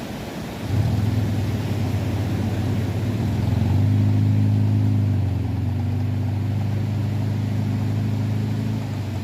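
An engine starts up about a second in and runs at a steady low hum, picking up speed a little for a second or two in the middle before settling back.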